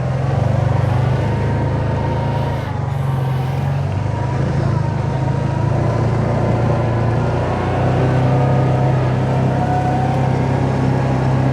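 Side-by-side UTV engine running steadily while the machine is driven.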